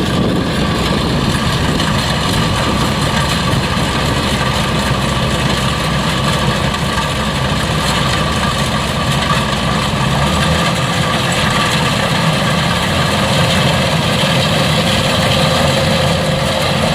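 Kubota DC105X combine harvester's diesel engine and machinery running steadily while harvesting rice, with a slight shift in the low drone about ten seconds in.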